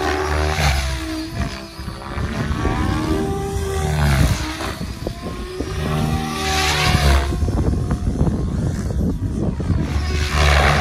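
Electric 700-size RC helicopter flying aerobatics: the rotor's pitched buzz rises and falls as it manoeuvres, with louder rushing swells of blade noise a few times as it swoops past.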